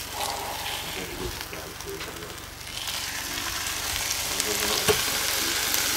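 Half a pig sizzling on the hot top of a wood stove as it is turned over and laid back down; the sizzle grows louder about halfway through. A single knock sounds near the end.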